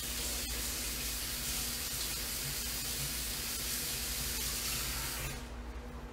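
Water running steadily from a kitchen tap, shut off about five seconds in.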